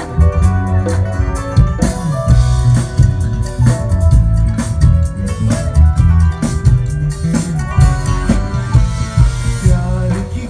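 Live rock band playing through a PA system: electric guitar, bass guitar and drum kit keeping a steady beat, with a male singer singing over them.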